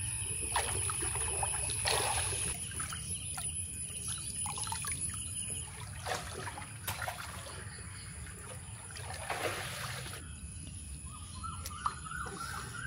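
Pond water splashing and trickling as people wade chest-deep and pull clumps of water weeds from the walls: several separate splashes over a steady low rush of water.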